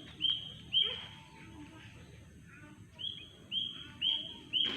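A bird calling with short, sharp chirps: two near the start, then four in a row about half a second apart.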